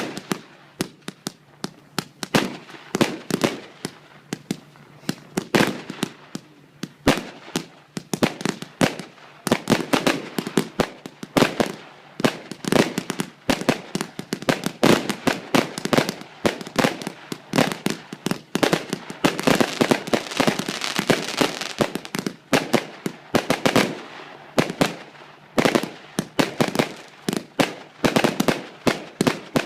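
Fireworks battery firing shot after shot: sharp launch bangs several a second, with a thicker stretch of hissing crackle about twenty seconds in.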